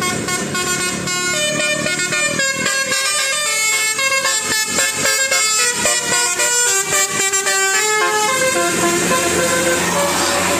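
A rapid tune of loud, horn-like notes, changing pitch every fraction of a second.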